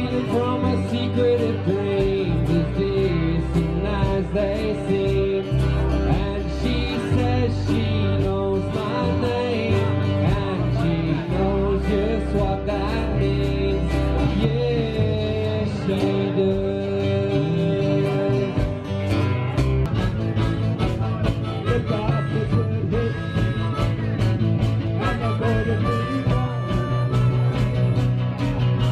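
A live band playing on electric guitars and bass guitar, with a lead melody line.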